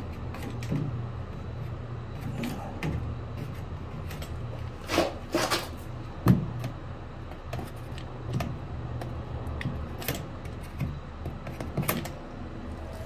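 Scattered light clicks and taps of hand work with a hot glue gun and metal trim, over a steady low hum, with a sharp knock about six seconds in.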